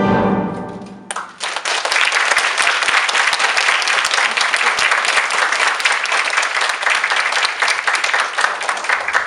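Recorded orchestral ballet music dies away, and about a second in an audience breaks into loud, dense applause that continues steadily.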